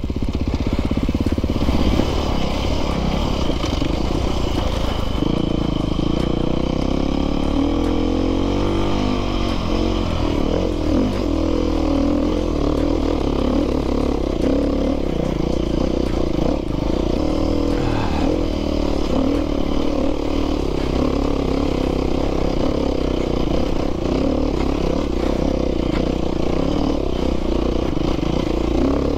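Dirt bike engine revving up and falling off again and again as the bike is ridden along a rough trail.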